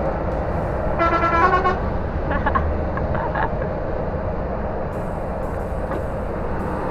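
A vehicle horn sounds once for just under a second about a second in, followed by a couple of fainter short tones. Under it runs the steady drone of the Scania R440 truck's engine and road noise heard from inside the cab.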